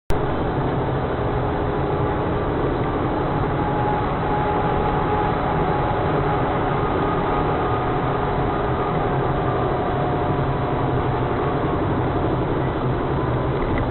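Vehicle in motion: a steady drone of engine and road noise that cuts in abruptly at the start.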